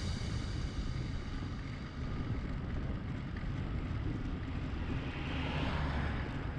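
Wind rumbling on the microphone of a camera riding along on a bicycle, an uneven low noise, with a rushing hiss swelling near the end.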